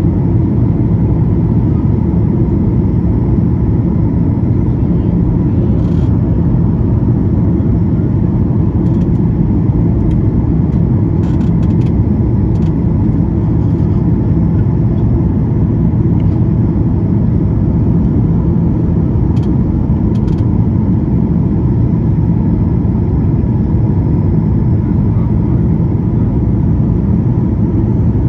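Steady in-cabin roar of a Boeing 737 MAX 8's CFM LEAP-1B engine and airflow, heard from a seat beside the engine during the descent: a loud, even rumble with a faint steady tone above it.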